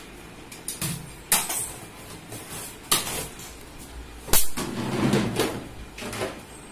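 A few sharp knocks and clacks, four in all, the loudest about four seconds in, followed by a second or so of shuffling and scraping.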